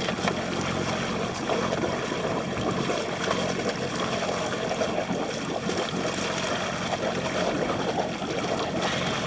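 Water sloshing and splashing against a boat's hull, stirred up by a hooked tuna held alongside, over the steady hum of the boat's engine.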